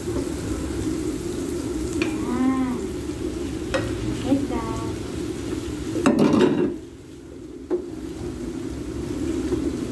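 Chopped garlic sizzling in oil in a nonstick frying pan, stirred with a plastic spatula that clicks against the pan, as raw shrimp are pushed in from a plate. A loud brief rush of noise comes about six seconds in, after which the frying is quieter and then slowly builds again.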